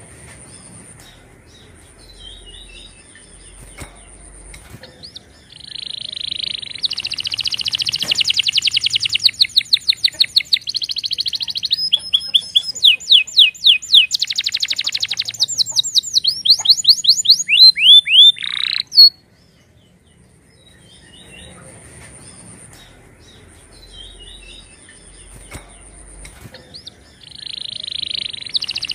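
Domestic canary singing: a long, loud song of rapid trills and rolled phrases, each repeated many times over, that stops abruptly. Soft scattered chirps come before and after it, and a new song phrase begins near the end.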